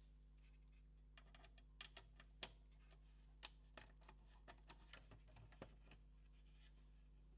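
Faint, irregular clicks and taps, about a dozen scattered over some five seconds, over a low steady hum: small parts of a PS4 Pro console being handled during disassembly.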